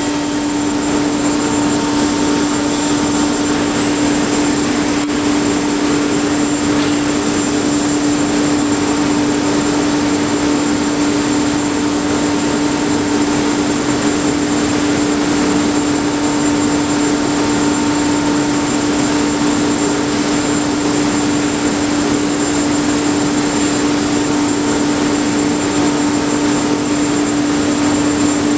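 Tyrolit Hydrostress SK-SD diamond wire saw running while it cuts through a thick concrete silo wall: a steady, unchanging drone with one strong hum held at a constant pitch over a rushing noise.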